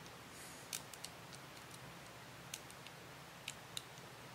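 Curta pocket mechanical calculator being handled: faint, small sharp clicks, irregular and about ten in all, as its setting sliders are moved through their notches.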